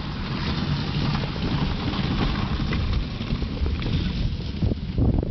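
Wind buffeting the microphone with a steady low rumble and a hiss over it that fades after about four seconds; a few sharp clicks near the end.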